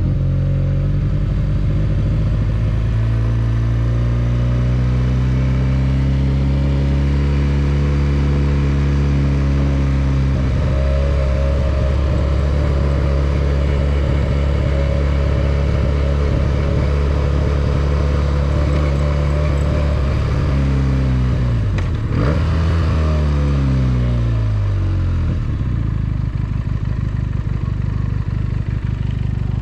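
Benelli 302S parallel-twin engine running under way, holding fairly steady revs for most of the stretch. About two-thirds through, the revs drop sharply as it slows, then climb again as it accelerates away.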